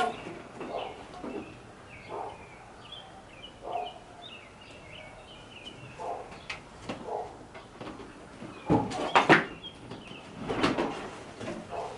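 Irregular knocks and clatters of parts being fitted into a vending machine by hand, loudest in a cluster about nine seconds in. Small birds chirp faintly in the background.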